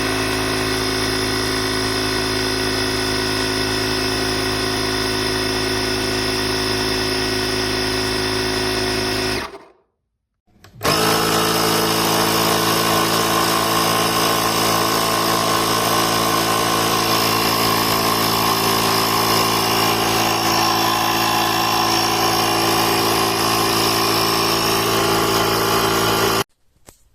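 Oasser portable 12V air compressor running steadily while inflating a tyre. It stops for about a second some nine seconds in, then runs again until just before the end.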